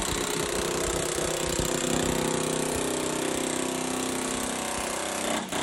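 Snap-on pneumatic air hammer with a chisel bit cutting through a pickup truck's steel bed-side panel, a steady rapid buzzing chatter that stops just before the end.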